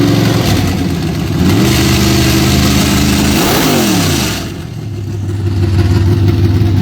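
Newly installed carburetted engine in a Camaro being revved: it is held at raised revs, eases off slightly, then is revved up again and held for about two seconds. A little past halfway it falls back to a steady idle.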